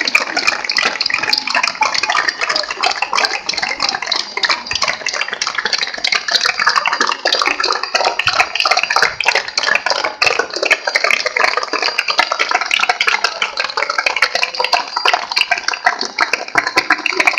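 Large crowd applauding without a break, a dense wash of many hands clapping.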